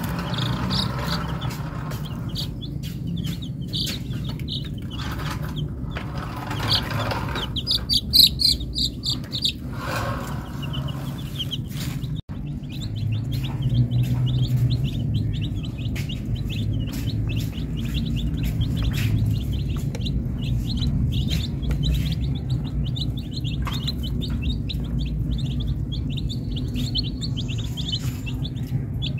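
A flock of baby chicken chicks peeping continuously, many short high chirps overlapping, over a steady low rumble.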